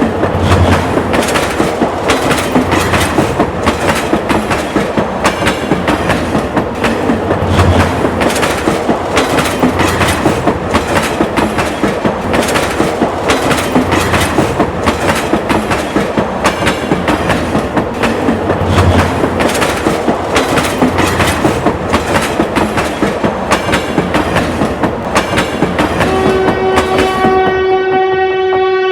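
Train running along the track, its wheels clicking rapidly and steadily over the rail joints (clickety-clack). Near the end a train horn sounds one long, steady blast.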